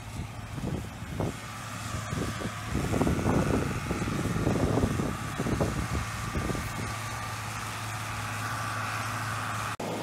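A tractor running while it pulls a New Holland round baler through the hay, with a steady low hum and, from about two seconds in, a steady higher whine. An uneven low rumble swells over it between about three and six seconds in.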